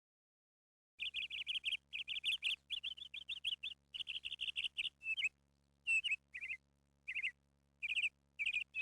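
A small bird chirping in quick runs of high notes, starting about a second in, with short gaps between the runs and a faint hum underneath.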